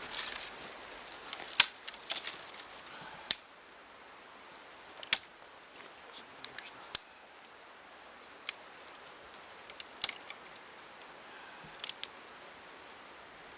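Thin dry sticks and kindling being snapped and worked by hand for a fire: about a dozen sharp cracks and clicks at irregular intervals.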